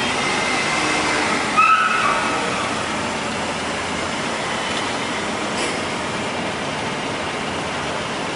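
Peugeot 206 hatchback driving slowly into a parking bay in an underground car park, its engine running under a steady hum. A short squeal comes about a second and a half in, the loudest moment.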